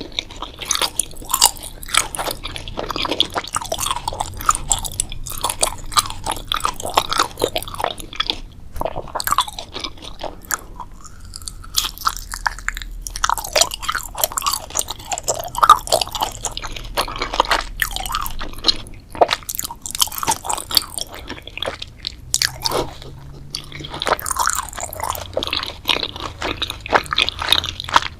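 Close-miked eating: a person biting and chewing crunchy food, a steady run of sharp crunches with a brief pause about eleven seconds in.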